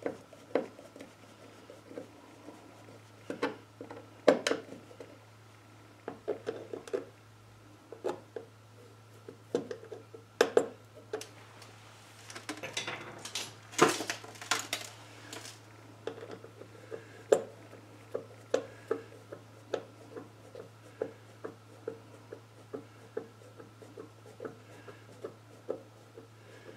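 Screwdriver turning steel headlight adjuster screws into a headlight mounting ring, giving scattered light metallic clicks, scrapes and taps, with a louder cluster of clatter about halfway through. A steady low hum lies underneath.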